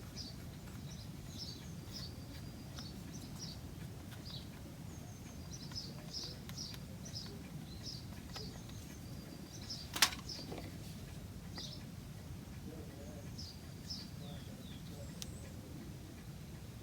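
Small birds chirping on and off over a steady low background rumble, with one sharp knock about ten seconds in.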